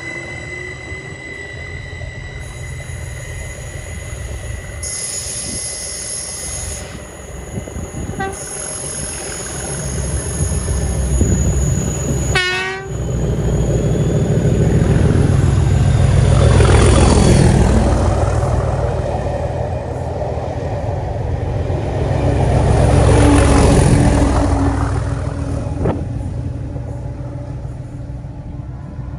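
Two Class 37 diesel locomotives, English Electric V12 engines, passing at full throttle in a heavy thrash. Their horns are sounded in tones on the approach. The engine noise swells to a peak as the first locomotive passes, dips, peaks again for the second, then fades away.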